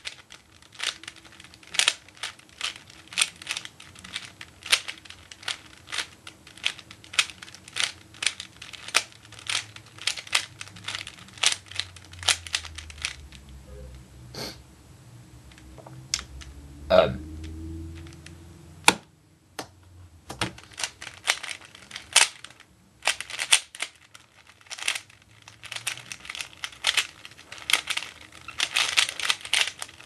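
Dayan Guhong 3x3 speedcube being turned fast by hand: rapid runs of plastic clicks as the layers snap round. The turning thins out for several seconds around the middle, where there are a couple of louder knocks, then picks up again, densest near the end.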